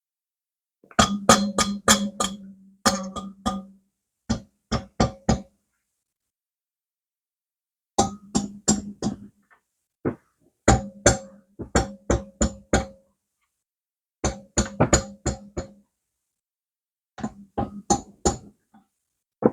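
Repeated hammer blows on a ringing metal part, in quick runs of about four to eight strikes with short pauses between the runs.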